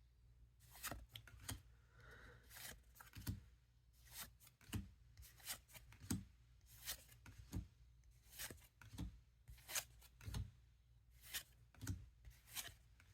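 Trading cards being handled and flipped one by one: soft, short card-stock clicks and rubs, about one a second, irregular.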